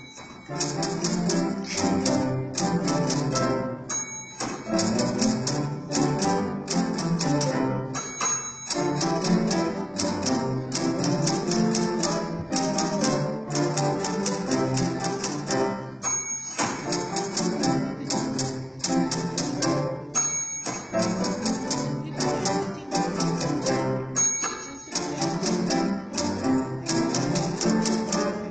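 Typewriter played as a percussion instrument with a string ensemble: rapid key clicks over bowed low strings, with the typewriter's carriage bell dinging about every four seconds.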